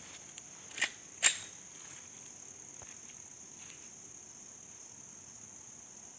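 Crickets or other insects chirring steadily, with two sharp clicks about a second in.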